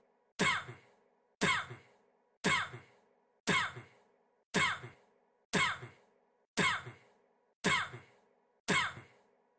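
The same single short cough from a young man, repeated at an even pace of about one a second, nine times, each one identical, like a loop.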